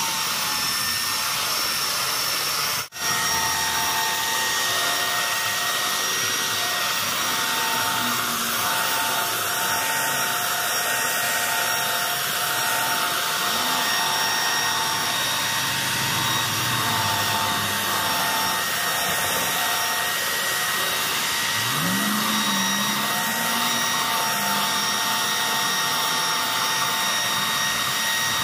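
Ryobi belt sander running steadily with a constant whine as its belt sands a wooden chopping board. This is the rough-sanding pass, taking the deep knife cuts out of the board. The sound breaks off for an instant about three seconds in.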